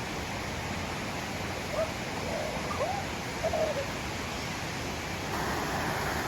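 Steady rushing of a river and its small waterfalls, with a few faint short calls about two to four seconds in.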